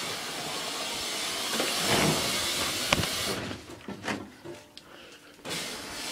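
Hoover washing machine filling with water at the start of its wash, a steady hiss of water rushing in through the inlet. The hiss stops a little past halfway, with a few knocks, and starts again near the end.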